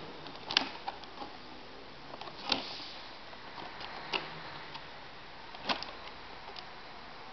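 Stiff clear plastic blister packaging of an action figure clicking and crackling as it is handled and turned over, in sharp clicks spaced a second or two apart.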